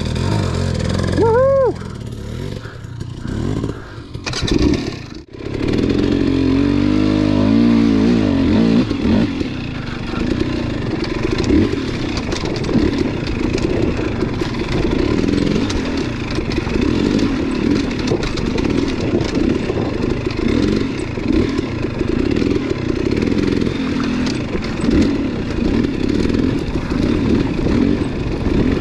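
KTM dirt bike engine riding off-road: revving up and down on a rocky climb, with a brief rising-and-falling whine about a second and a half in, then running steadily along the trail, its note rising and falling with the throttle.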